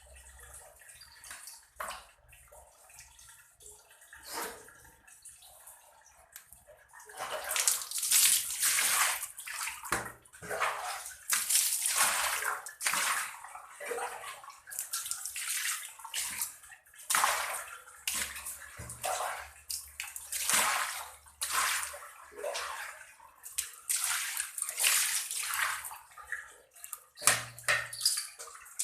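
Water sloshing and splashing in irregular bursts as fish are washed in water. It is faint at first, then louder and busier from about seven seconds in.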